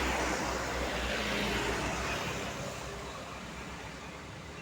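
A road vehicle passing, its engine rumble and tyre noise loudest in the first two seconds and then fading away. No horn sounds.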